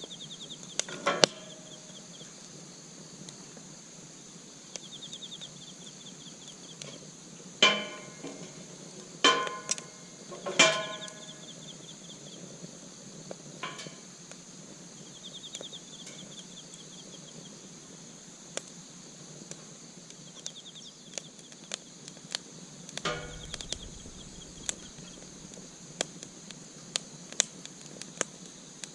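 Several sharp knocks, irregularly spaced, a few with a brief ringing tail, over repeated short insect chirp trains and a steady high insect hum.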